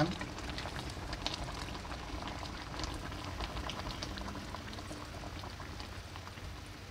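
Fish curry bubbling steadily in a small wok, with many small pops, as tamarind water is poured in from a bowl.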